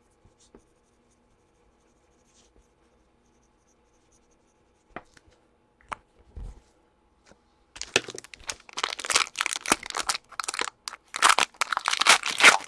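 Near silence broken by a couple of small clicks, then from about eight seconds in the loud crinkling and tearing of a plastic Panini Prizm basketball card pack wrapper being ripped open.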